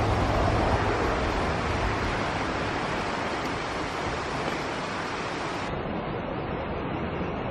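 Steady rush of water pouring over a small rocky cascade into a creek pool.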